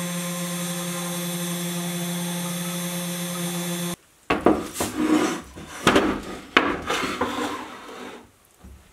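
Spindle motor of a CNC 3018 mill running steadily while its end mill engraves aluminium, a constant whine made of several pitches. It cuts off abruptly about four seconds in, followed by a series of knocks and scrapes as the machine's aluminium-and-plastic frame is set down and shifted on a wooden workbench.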